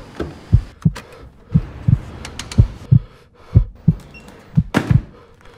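Low thumps in pairs like a heartbeat, about one pair a second, with faint clicks between them: a heartbeat-style soundtrack beat.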